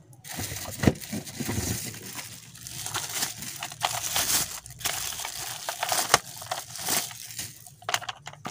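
Plastic bag crinkling and rustling as a handheld vacuum's black floor-brush attachment is unwrapped and handled, with scattered sharp clicks of hard plastic.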